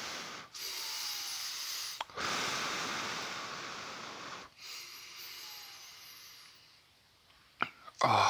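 A person breathing heavily through the mouth close to a headset mic, about four long hissing breaths. He is blowing against the chili heat of spicy noodles. A short sharp click comes near the end.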